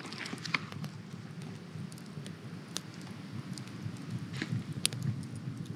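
Wood campfire crackling: irregular sharp pops and snaps over a low, steady flame noise.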